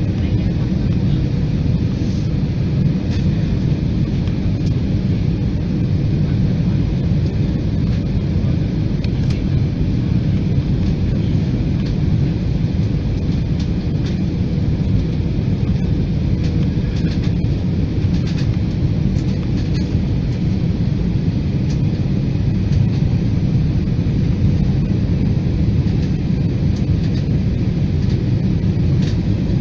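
Jet airliner cabin noise on final approach with flaps extended: a steady low rumble of the engines and the rushing air.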